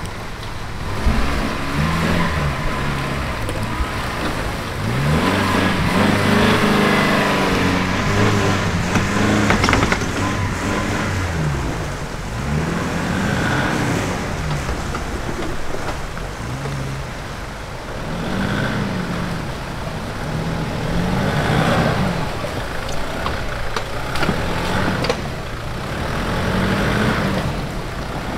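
Off-road 4x4's engine pulling under load, revving up and easing off again and again every few seconds.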